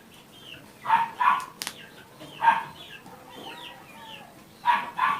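Chicken clucking, with loud calls about a second or two apart and fainter high chirps between them; a single sharp click about one and a half seconds in.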